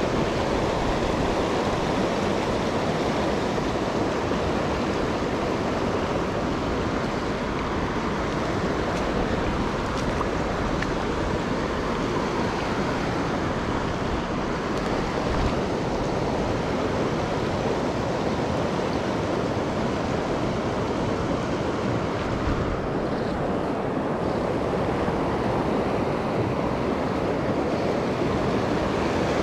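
Steady rush of a fast-running mountain river pouring over rocks and boulders, heard close at the water's edge.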